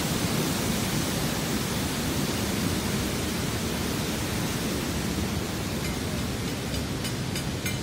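Manavgat Waterfall's water rushing in a steady, even wash of noise. A few faint clicks come near the end.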